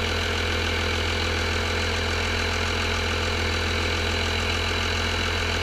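12-valve Cummins inline-six diesel idling steadily with an even low drone.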